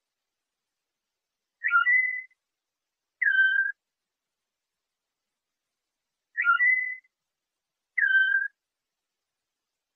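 Pure whistled tutor notes for training a canary in the Moroccan 'flute' (flauta) style. Two different short whistles, each a quick downward slide into a held tone, the first held higher than the second, come as a pair about a second and a half apart. The pair repeats about three seconds later.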